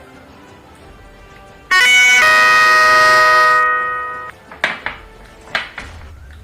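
A loud, sudden horn-like tone, several pitches sounding together, that steps up once just after it starts, holds for about two seconds and then fades out, followed by a few sharp clicks.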